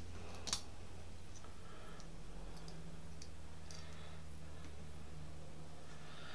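Small clicks of metal hardware, a U-bolt, saddle and screws, being handled and fitted to a quadcopter motor mount: one sharper click about half a second in, then a few faint ones, over a steady low hum.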